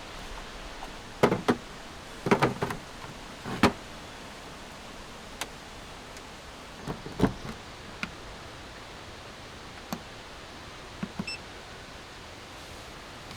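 A string of sharp knocks and clatters, with the loudest bunched in the first few seconds, over a steady background hiss.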